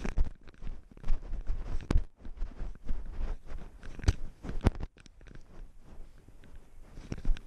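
A camera worn on a cat rubbing and knocking against its fur and mount as the cat moves over rubble and dry brush, with irregular rustling and crunching and a few sharp knocks.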